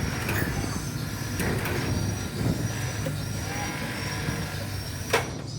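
Remote-controlled electric hoist motor running with a steady low hum, with one sharp click about five seconds in.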